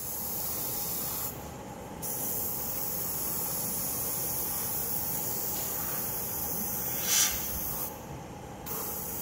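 Gravity-feed airbrush spraying thinned paint: a steady hiss of air and paint that drops out twice for under a second, with a short, louder spurt late on.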